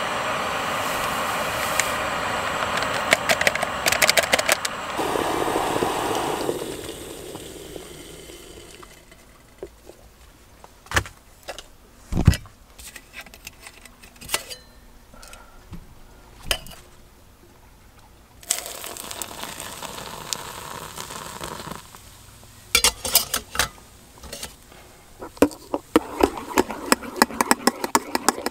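Compact gas canister stove burner running with a steady hiss that dies away after about six seconds, followed by scattered knocks of the pot and gear being handled and a second spell of steady noise. Near the end comes a quick run of clinks from a spoon stirring coffee in an enamel mug.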